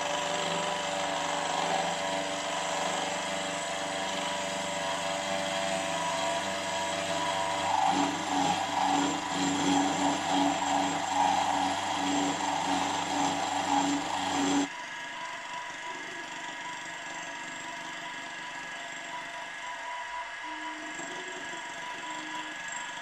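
Milling machine face-milling the flange of a cylinder-block casting with a spinning face-milling cutter. It makes a steady cutting noise that turns into an uneven, pulsing chatter about eight seconds in. About fifteen seconds in it drops suddenly to a quieter steady running sound.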